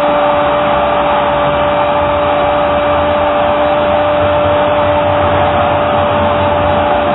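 Football commentator's long held goal call, a single 'gooool' shout sustained on one steady pitch, over a cheering stadium crowd.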